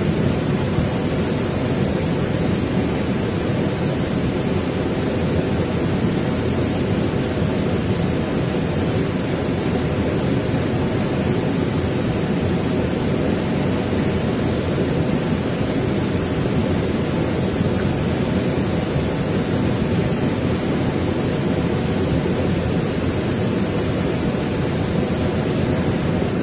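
Fast-flowing river water rushing steadily, an unbroken even noise.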